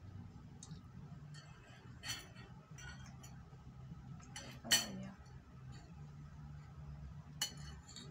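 Metal spoon and fork clinking and scraping against a ceramic bowl as food is cut and scooped: a handful of scattered clinks, the loudest a little past halfway.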